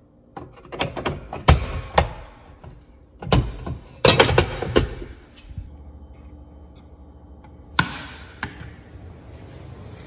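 Plastic and metal clacks and thunks as an air-conditioner disconnect pull-out is pushed back in and its metal cover shut, the loudest cluster about four seconds in. After that comes a faint steady hum, with a sharp click near the end from a thermostat being set.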